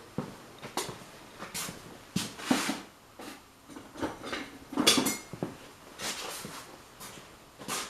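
Irregular clinks, clicks and brief scrapes of hand work on a motorcycle clutch cable and its fittings, the loudest clatter about five seconds in.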